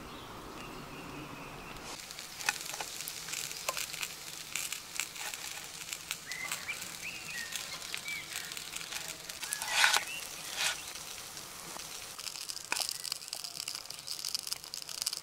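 Food frying in a pan over a small wood fire: a dense run of crackles and sizzle that starts abruptly about two seconds in, with one louder clatter near the middle.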